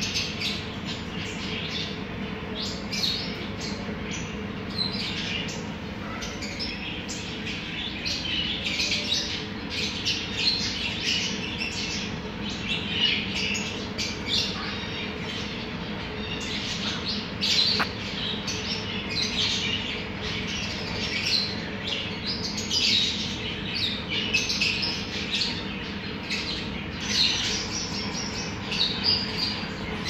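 Dense chorus of caged small parrots and finches chirping and squawking over each other without a break, with a steady low hum underneath.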